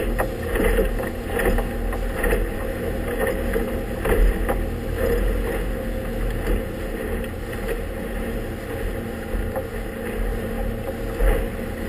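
Small inflatable motorboat under way with its engine running steadily, the hull slapping and splashing through choppy water in a stiff breeze, with wind on the microphone.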